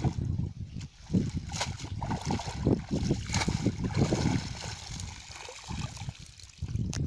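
Water splashing as a cast net is dragged out of shallow pond water, a caught fish thrashing in it. The splashes come irregularly, busiest in the middle, and ease off near the end.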